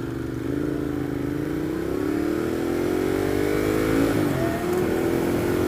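Sport bike engine accelerating, its pitch climbing steadily, then dropping with an upshift about four seconds in and running on steadily, over wind rush.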